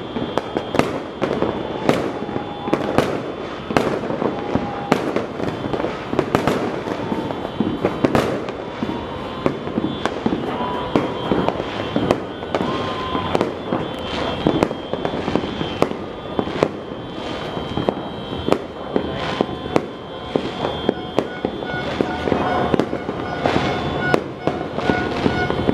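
Many fireworks and firecrackers going off across the neighbourhood at once: a dense, continuous crackling with louder bangs about every second.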